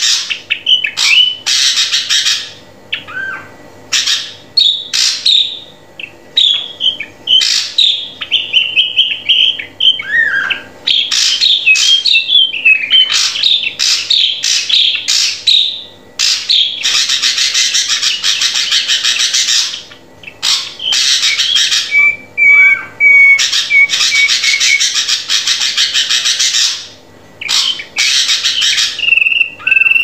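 Drongo singing: bursts of harsh, raspy chatter alternate with clear whistled notes, some gliding down in pitch, and about two-thirds through comes a run of short whistles on one even pitch.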